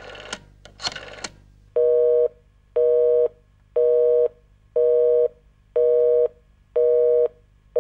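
North American telephone busy signal: a two-note tone beeping once a second, half a second on and half a second off, six times, beginning about a second and a half in. A few short clicks come before it.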